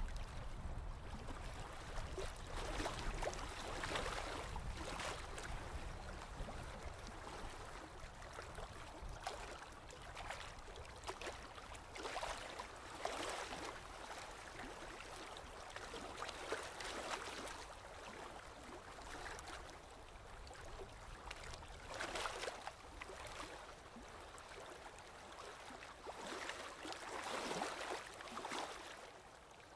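Sea waves washing in, with a swell of splashing water every few seconds over a steady wash. A low rumble underneath fades out after the first several seconds.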